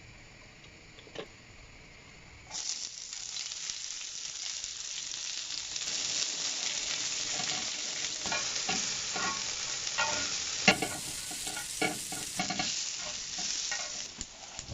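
Vegetables sizzling as they fry in olive oil in a pan, stirred with a utensil that knocks and scrapes against the pan. The sizzle starts suddenly about two and a half seconds in and then holds steady.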